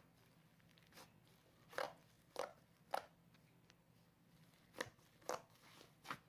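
Cloud slime being squished and stretched by hand, giving soft crunchy crackles, about seven separate crunches at irregular intervals.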